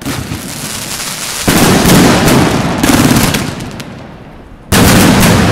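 Fireworks going off: a dense, continuous crackling with rapid pops. It surges loud about a second and a half in, fades, then starts again suddenly near the end.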